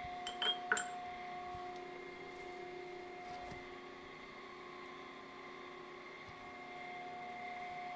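A few light metal-on-metal clinks in the first second, then a steady machine hum with several held tones from the shop equipment.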